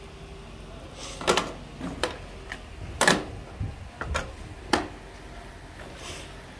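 Plastic firearm magazines being set down and shifted on a wooden bench: an irregular series of sharp clacks and knocks between about one and five seconds in.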